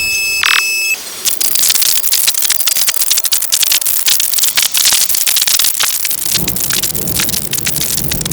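Raw synthesized noise effect from the KORG iMS-20 synthesizer app: a short steady high tone, then, about a second in, a dense hiss of rapid crackles and clicks that sounds like rain or crackling fire.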